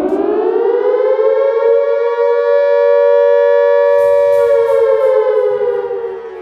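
Air-raid siren winding up, levelling off into a steady wail of two close tones, then starting to wind down near the end.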